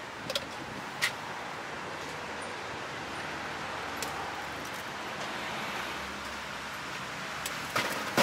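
Steady rushing background hiss with a few sharp clicks and taps of a metal spatula and egg at a steel crepe griddle. Near the end a quick cluster of louder taps comes as eggs are cracked onto the crepe.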